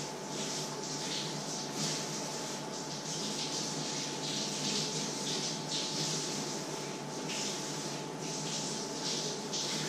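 Food sizzling on the stove, crackling and spattering in irregular bursts, over a steady faint high hum.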